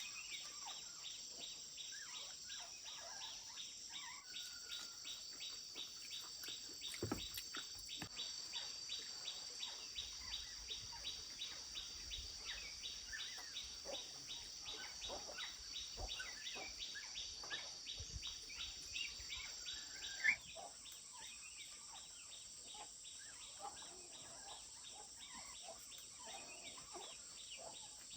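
Rural outdoor ambience: insects buzzing steadily at a high pitch, with a regular chirp about three times a second that stops about two-thirds of the way through. Scattered bird calls throughout.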